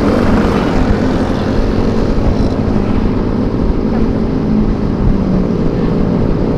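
Yamaha Mio scooter's small single-cylinder engine running at cruising speed, heard under steady wind rush buffeting the helmet-cam microphone.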